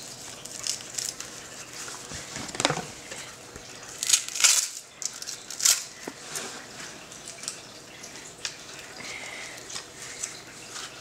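Dog boots and their straps being handled: rustling and short scraping rasps, the loudest few coming between about four and six seconds in, with quieter handling noise between them.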